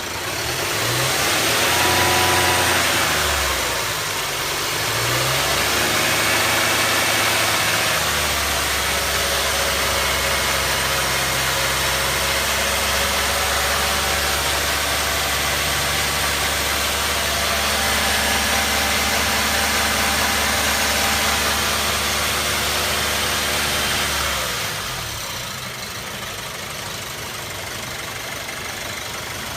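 BMW E91's N43 four-cylinder petrol engine, warmed up, revved briefly twice, then held at raised revs for about sixteen seconds before settling back to idle near the end.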